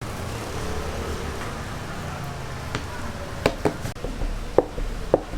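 Kitchen ambience at a youtiao stall: a steady background hum with faint voices, then five sharp knocks or taps in the second half.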